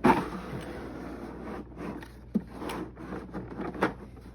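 Handling of a Husky tool set's case: a sharp knock right at the start, then rubbing and scraping with a couple of sharp clicks, as its door is opened and the straps holding the tools are handled.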